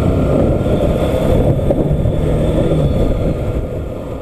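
Bajaj Pulsar NS200's single-cylinder engine running steadily while the motorcycle is ridden, with wind rushing over the microphone.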